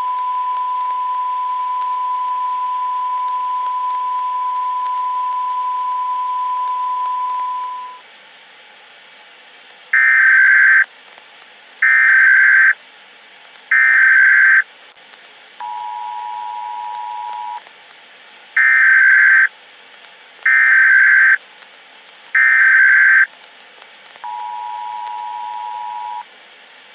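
Emergency Alert System test signal: a steady high tone for about eight seconds, then three short buzzing data bursts of the digital header, about two seconds of the two-tone attention signal, three more buzzing bursts, and the two-tone signal again.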